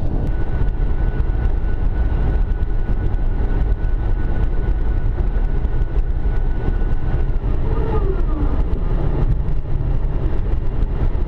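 Airbus A380 cockpit noise while the airliner rolls along the runway: a steady, loud low rumble. A thin steady whine runs through it and stops about seven seconds in.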